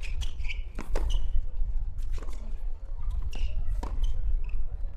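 Tennis ball bounced several times on a hard court, sharp separate thuds at an uneven pace, as a player readies to serve, over a steady low rumble and faint voices.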